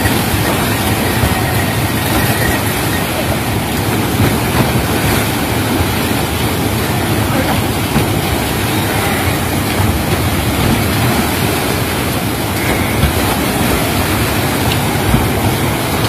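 Loud, steady rush of a river pouring over a weir and churning below it.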